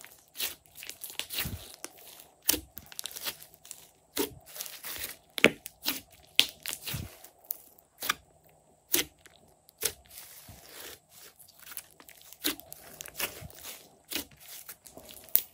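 Hands squeezing, stretching and pressing glossy slime. Irregular sharp pops and clicks, several a second, come from air pockets squeezed out of the slime, with soft squelches between them.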